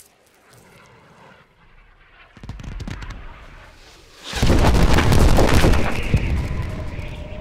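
Film sound effect of a midair explosion: a rumbling burst about two and a half seconds in, then a loud blast about four seconds in that crackles and dies away slowly.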